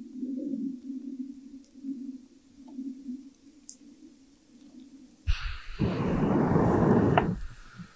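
A person blowing hard on campfire embers to fan the flames: a loud rush of breath that starts suddenly about five seconds in, lasts about two seconds, and after a short pause for breath starts again near the end. Before it there is only a faint low hum and a few light clicks.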